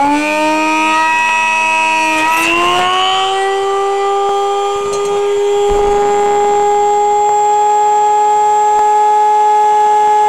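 Home-built CNC machine's motors whining under test: the pitch slides down and up over the first few seconds, then settles into a steady high hum.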